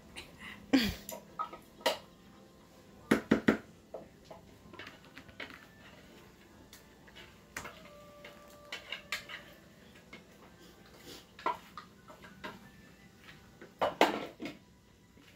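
A wooden spoon knocking and scraping against a blender jar as blended hot pepper and onion is scooped out into a bowl. Scattered knocks and clatters come at irregular moments, the loudest about a second in, a quick cluster around three seconds in, and another near the end.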